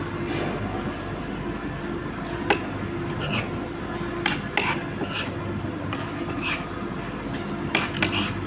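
Cutlery clinking against dishes now and then, a sharp clink every second or so, with a few in quick succession near the end, over a steady low background hum.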